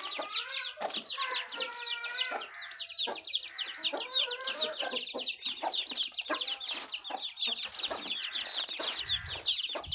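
Chickens calling: a dense, continuous chorus of short, high, falling peeps like chicks, with lower clucking calls through the first half.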